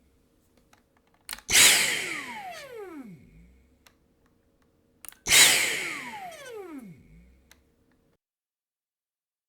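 Two Gundam-style beam rifle shot sound effects, about four seconds apart. Each opens with a short crack and a bright blast, then several tones sweep down in pitch together and fade over about two seconds.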